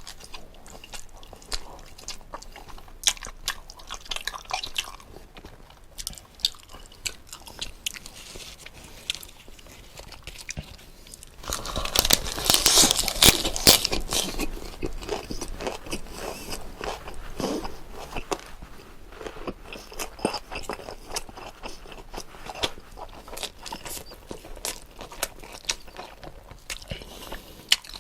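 Close-miked chewing and biting of jokbal and side dishes, with wet clicks of the mouth throughout. About twelve seconds in there is a louder, denser stretch of crunching lasting a few seconds.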